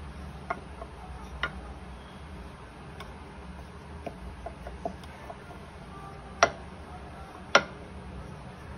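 Chapati dough being rolled out on a board with a wooden rolling pin, the shaft of a dal masher, making scattered light clicks and taps as the pin knocks the board, with two sharper knocks near the end. A steady low hum runs underneath.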